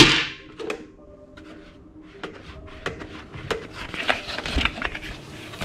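A metal toy chain dropped onto a table with a clattering rattle at the start, then a hard plastic toy helmet picked up and handled, giving scattered light knocks and clicks. Quiet background music plays underneath.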